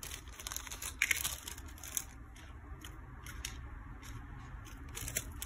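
Small clear plastic zip-lock bag crinkling and rustling in the hands as fingers dig a small swivel out of it, with scattered faint clicks. The crackle is busiest in the first two seconds, then thins out.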